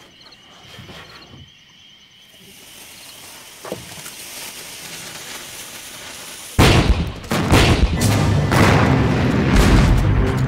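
A faint rising hiss with a single click partway through, then a sudden loud explosion about two-thirds of the way in, followed by continuing booms under film music.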